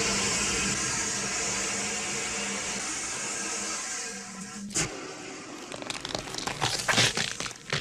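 A fire extinguisher sprays with a steady loud hiss and cuts off sharply about five seconds in. Then come irregular crackling, crunching creature sound effects.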